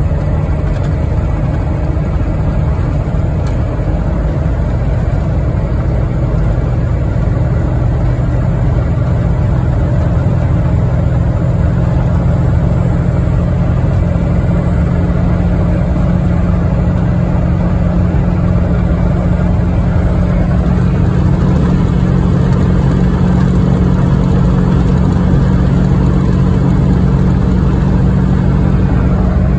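A 1996 Ford F350's 7.3 Powerstroke turbo-diesel V8 pulling the truck down the road, heard from inside the cab: a steady, loud engine drone over constant road noise.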